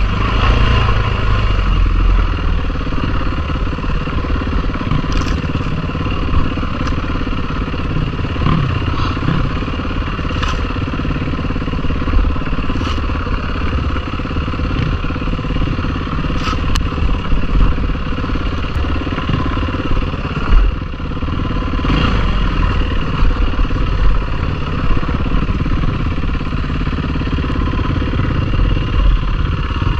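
Yamaha WR four-stroke single-cylinder dirt bike engine running steadily while riding a rough, rutted trail, with scattered sharp clicks and knocks as the bike goes over the ground.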